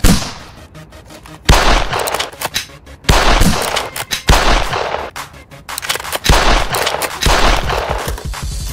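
A series of sudden, loud gunfire-like blasts, about six in eight seconds, each a sharp hit with a deep thump and a noisy trailing tail.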